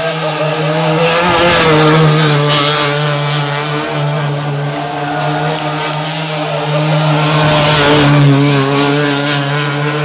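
Rally car engine held at high, nearly steady revs as the car spins donuts, the wheels spinning and smoking on the tarmac. The sound swells twice, about two seconds in and again near eight seconds.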